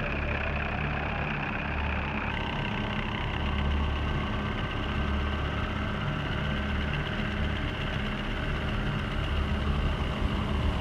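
Steady helicopter engine and rotor drone heard from aboard the aircraft, its low pulsing thrum strongest at the bottom end; the sound shifts abruptly about two seconds in.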